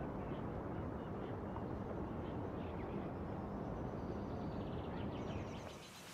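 Outdoor ambience: a steady low rumble with faint bird chirps. Near the end the rumble drops away and a brighter, airier background takes over.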